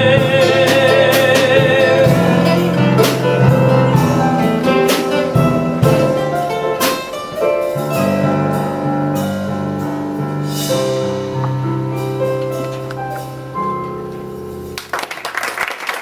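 Live band of piano, drums and guitar playing out the end of a song, with a singer holding a long note with vibrato for the first couple of seconds. The music stops near the end and applause breaks out.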